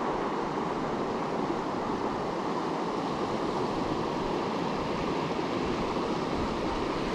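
Steady rushing of a small upland river's flowing water, with wind ruffling the surface.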